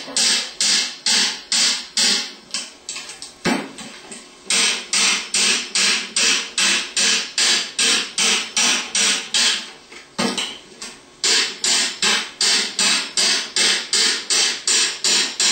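Ball peen hammer tapping steadily on the front half of a Bosch alternator's aluminum housing, about two to three ringing metallic taps a second with a couple of short pauses, to drive the front half off the rear half.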